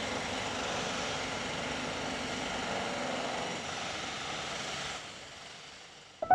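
Steady outdoor background rumble and hiss with a faint engine hum in it, fading out over the last second or so.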